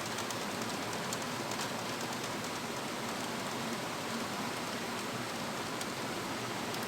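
Steady hiss with a few faint light clicks from a hand screwdriver turning out the small screws of a computer's back panel.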